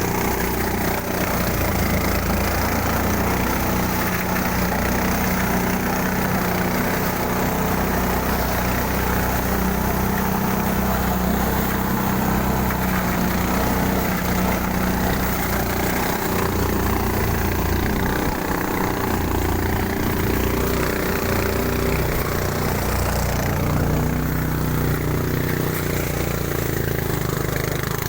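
Engine-driven rice threshing machine running steadily, its engine note dropping slightly about two-thirds of the way through.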